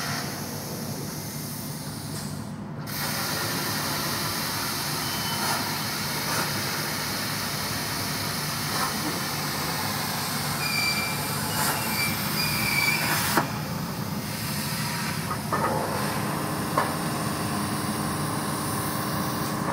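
Plasma torch of a Start-2A CNC plasma cutting machine hissing steadily as it cuts 3 mm mild steel sheet, with a couple of short breaks in the hiss and a few sharp clicks in the second half.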